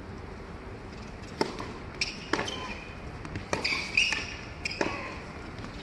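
A tennis rally on an indoor hard court: sharp pops of racket strikes and ball bounces, starting about a second and a half in and coming every half second or so, with short high squeaks in between.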